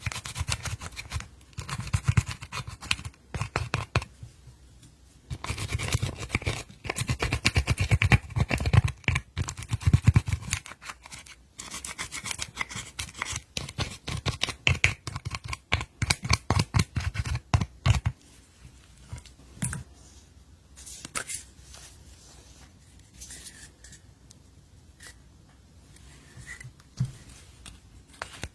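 Glitter slime being squeezed, stretched and kneaded by hand, giving dense sticky clicking and crackling for the first eighteen seconds or so, then only scattered softer clicks.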